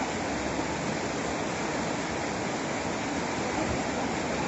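Fast-flowing floodwater of a swollen river, a steady, unbroken rushing noise.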